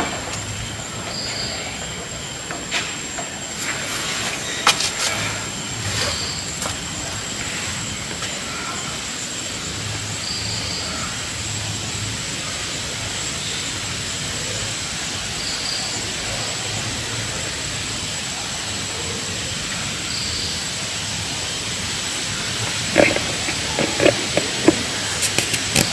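Forest ambience: a steady hiss of insects with one thin high note held throughout, and a short high call repeating about every four to five seconds. A few sharp clicks come near the end.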